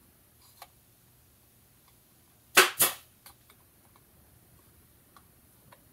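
Two sharp snaps close together about halfway through, among a few faint clicks, as small parts are handled at the workbench.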